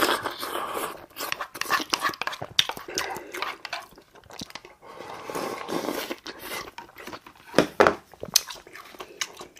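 Close-up eating sounds: chewing and crunching of food in the mouth, with irregular sharp clicks throughout.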